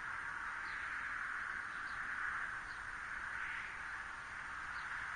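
Steady outdoor background hiss with faint, short, high chirps about once a second, animal-like.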